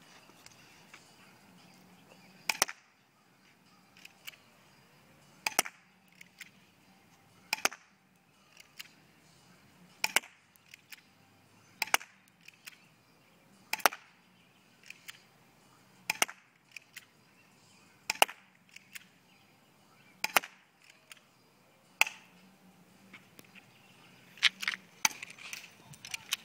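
KWC Sig Sauer SP2022 spring airsoft pistol fired shot after shot, about one sharp snap every two seconds. Between the shots come quieter clicks of the slide being racked to cock the spring for the next shot.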